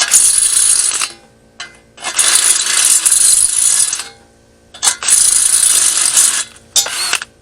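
Electric welder laying short welds on steel body panels: four bursts of crackling, one to two seconds each, with pauses between them in which a faint steady hum remains, as in stitch or plug welding.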